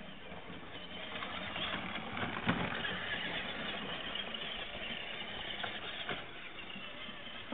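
Peg Perego Gaucho battery-powered ride-on toy 4x4 driving over grass, its electric motors and plastic wheels running, growing louder as it comes close and easing off as it moves away, with a sharp knock about two and a half seconds in.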